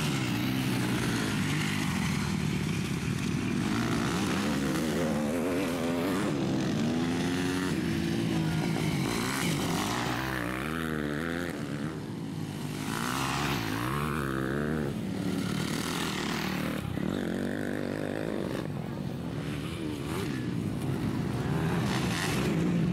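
MX2 motocross bikes' engines revving hard on a dirt track, their pitch repeatedly climbing and dropping through the gears, with several bikes overlapping.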